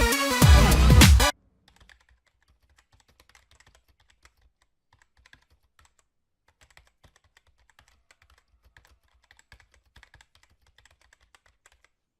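Electronic dance music that cuts off abruptly about a second in, followed by faint, irregular clicking.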